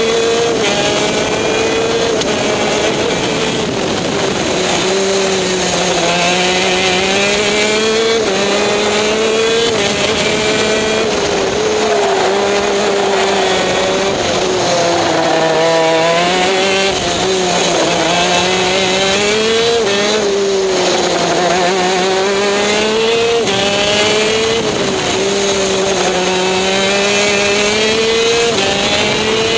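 Onboard sound of a TM K9C 125cc two-stroke shifter kart engine at full racing pace. Its engine note rises and falls throughout, climbing under acceleration and dropping for braking and gear changes through the corners.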